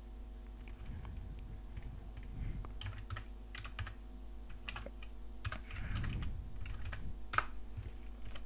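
Typing on a computer keyboard: scattered, irregular keystrokes.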